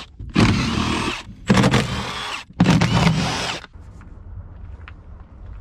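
Cordless power tool running in three bursts of about a second each, with a rising motor whine in each, as it backs out a car seat's mounting bolts. It stops a little before four seconds in.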